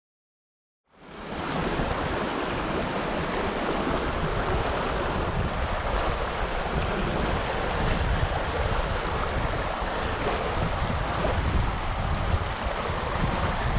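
Shallow mountain stream rushing over rocks and riffles, a steady wash that comes in about a second in after silence, with gusts of wind buffeting the microphone.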